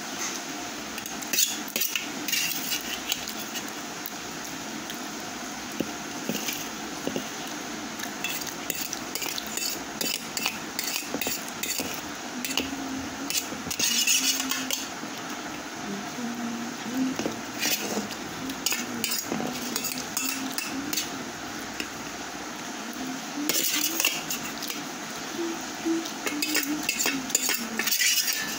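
Metal spoon scraping and clinking against a stainless steel plate of noodles, in irregular scattered strokes, with louder flurries about halfway through and near the end.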